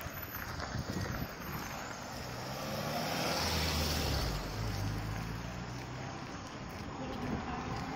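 A car driving past close by, its engine hum and tyre noise swelling to their loudest about three to four seconds in and then fading, with wind buffeting the microphone.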